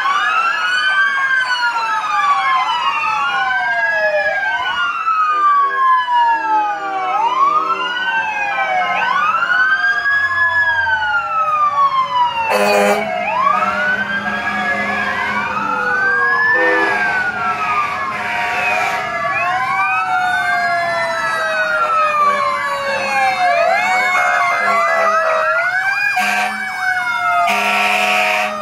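Several fire truck sirens wailing at once, their rising and falling cycles overlapping out of step as the trucks pass. Short horn blasts cut in about four times, around the middle and near the end.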